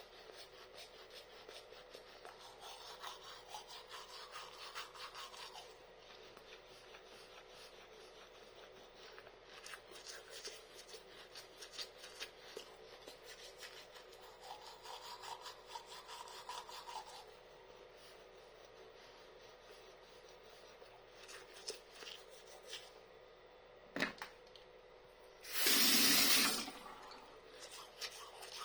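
Toothbrush bristles scrubbing back and forth over teeth in fast, continuous strokes. Near the end there is a sharp click, then a loud rushing burst lasting about a second and a half.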